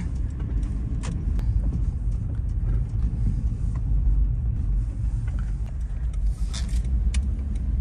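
Steady low engine and road rumble heard from inside a slowly moving car, with a few light clicks about a second in and again near the end.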